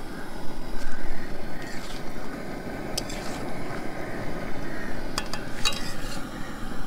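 Steel spatula stirring and scraping pieces of chicken in spiced masala around a metal kadai, the food sizzling as it fries. A few sharp clinks of the spatula against the pan stand out, about halfway through and again near the end.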